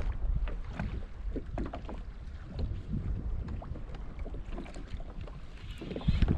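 Wind buffeting the microphone and water slapping against a fishing kayak's hull, with many small irregular clicks and knocks. The rumble grows louder near the end.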